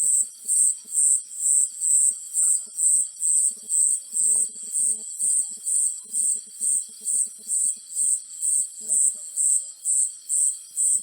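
Cricket chirping: a high, even chirp repeating about twice a second without a break. Faint low rapid clicking comes and goes underneath.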